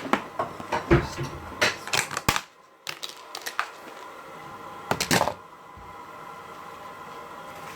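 Sharp clicks and knocks from a small plastic slime container being handled and opened, in a quick irregular run for the first few seconds, then a couple more about five seconds in.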